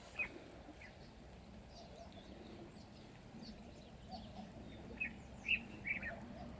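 Small birds giving short, sharp chirps: one just after the start, scattered fainter chirps, then a quick run of louder ones in the last two seconds, over a faint, steady outdoor background.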